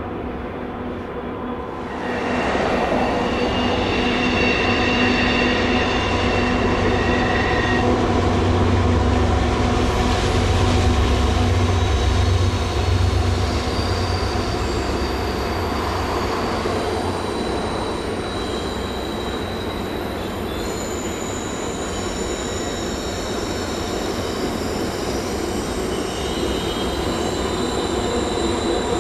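Long Canadian Pacific freight train rolling past, with a deep rumble and steady high-pitched wheel squeal. The sound swells about two seconds in.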